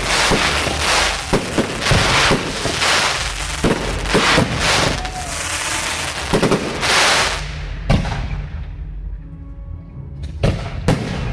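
Fireworks display: many rapid bangs over dense crackling, thinning out about eight seconds in, then two sharp bangs near the end. Music from the show's soundtrack plays underneath.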